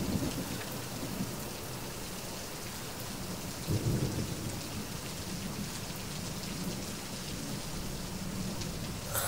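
Steady heavy rain, with a low rumble of thunder about four seconds in.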